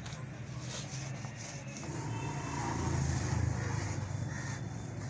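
Road traffic: a vehicle engine running with a low hum that grows louder about halfway through, then eases off.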